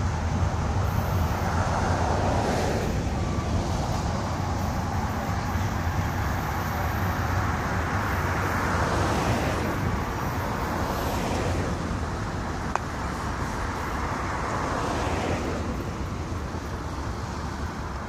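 Cars passing on the street one after another, about four, each swelling and fading, over a steady low rumble.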